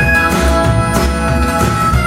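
Instrumental pop music with guitar, a steady bass and a held lead melody line, played back through a Yamaha RX-V665 AV receiver and Mission speakers.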